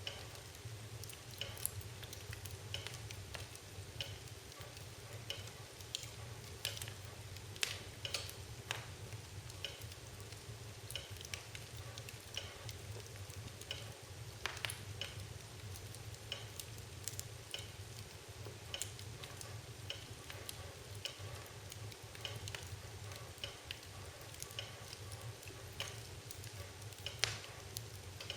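Fire crackling: irregular pops and snaps throughout, over a steady low hum.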